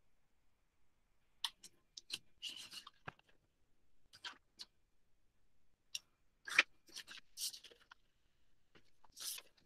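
Scattered clicks and short rustles of someone handling things at a desk, a dozen or so irregular sounds.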